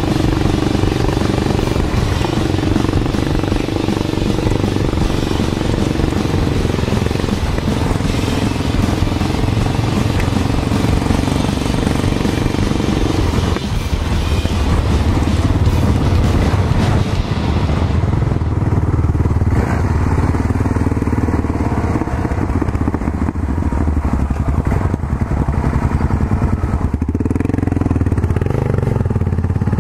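Yamaha XT660Z Ténéré's single-cylinder engine running steadily while riding, with wind hiss on the microphone that thins out about two-thirds of the way in.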